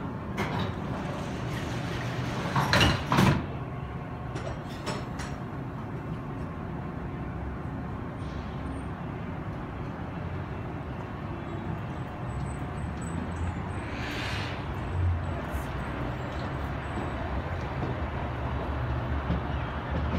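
Metra bilevel commuter train's doors closing with a loud clatter about three seconds in, then the train pulling out of the station. A steady low rumble of the train and its wheels runs under it all, with a brief hissing swell about two thirds of the way through.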